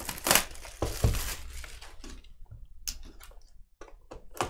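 Plastic shrink wrap crinkling and tearing as a sealed trading-card box is handled and cut open, busiest in the first two seconds, then a few sharp clicks and scrapes from a box cutter near the end.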